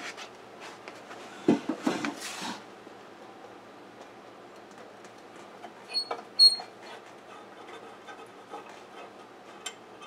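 A screwdriver backing slotted screws out of a bench grinder's cast-iron wheel guard. Soft knocks and handling sounds come about two seconds in, two sharp metallic clinks about six seconds in, and small scattered ticks between.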